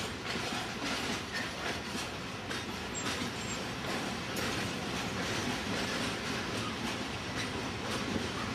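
A long train of coal hopper wagons rolling past, a steady rumble with the repeated clacking of their wheels on the rails.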